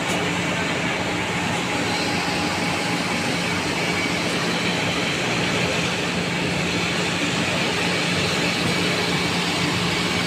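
Steady drone of running machinery, with a constant low hum and a faint high whine.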